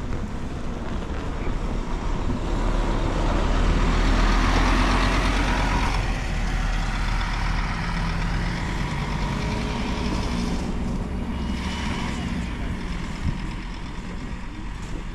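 A heavy vehicle's engine passing close by. It grows to its loudest about four seconds in, then slowly fades.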